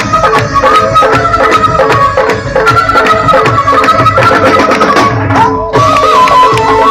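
Live instrumental interlude of Punjabi folk music: a melody instrument plays a winding line over a steady held drone, with a busy hand-drum rhythm underneath. The drums stop for a moment about five seconds in, then come back.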